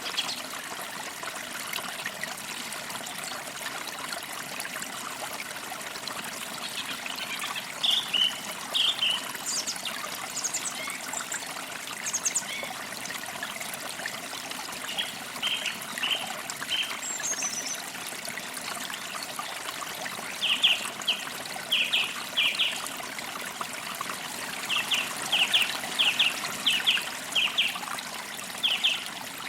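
Forest creek trickling steadily, with small birds chirping over it: scattered calls in the first half, then runs of quick repeated chirps in the second half.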